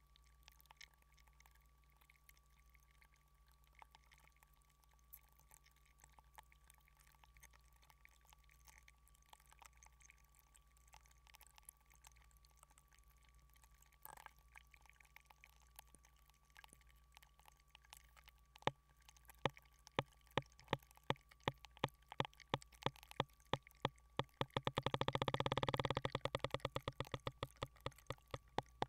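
Block of ice melting in water, heard through contact microphones frozen inside it. It gives scattered faint ticks at first; about two-thirds of the way in comes a quickening run of sharp clicks and pops that crowds into a dense crackling burst near the end, with clicks carrying on after it.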